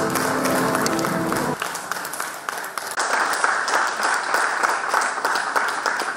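Music with held notes that cuts off about a second and a half in, followed by audience applause.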